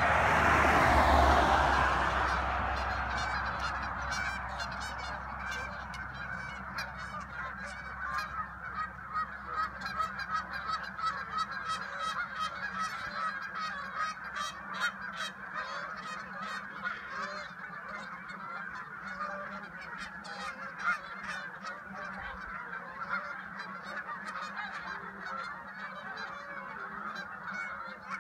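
A large flock of geese calling in flight, a dense, continuous chorus of honks that thickens after several seconds. In the first couple of seconds a loud rush of a vehicle passing on the road covers the calls, then fades.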